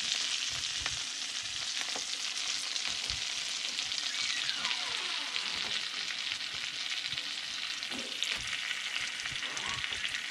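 Seasoned red snapper fillets sizzling in hot melted butter in a frying pan set to medium-high: a steady hiss flecked with small pops and crackles as more fillets are laid in.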